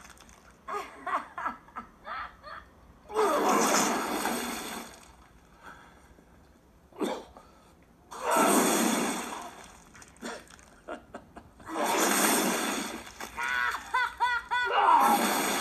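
Four bursts of liquid spraying and splattering, each lasting a second or two, with short wet clicks between them. A wavering voice, like a laugh or gasp, comes in just before the last burst.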